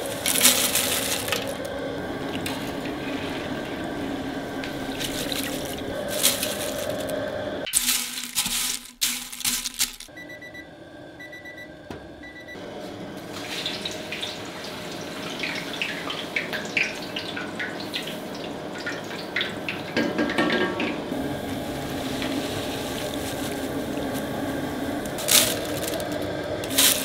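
Potato chips deep-frying in hot oil, a steady sizzle, with sharp clinks and scrapes of a wire spider skimmer against the pots as the fried chips are scooped out and tipped into a stainless steel pot. The sizzle drops away briefly about ten seconds in.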